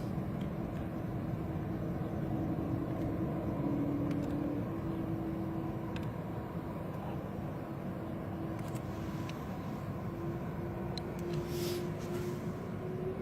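Steady rumble of jet airliner engines heard from inside the cabin, just after takeoff clearance. A low engine tone climbs slowly in pitch over the last few seconds as the engines spool up for the takeoff roll.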